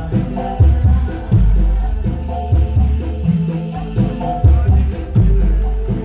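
Loud dance music played through Blizzard Audio's truck-mounted sound system, with deep, heavy bass notes and a steady run of short high ticks over them.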